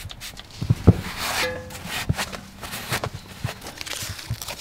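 Handling noise of hands at work: scattered clicks and knocks, two heavier thumps just under a second in, and a short spray from a hand trigger spray bottle about a second in as a brake disc is wiped down with a rag.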